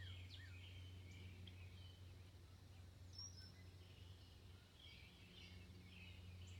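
Near silence outdoors: faint bird chirps and a few short falling whistles over a steady low hum.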